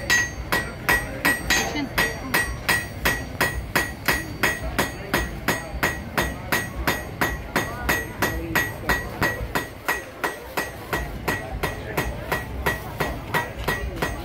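Blacksmith's hand hammer striking a red-hot iron bar on an anvil in a steady rhythm, about three blows a second, each blow with a short high ring from the anvil.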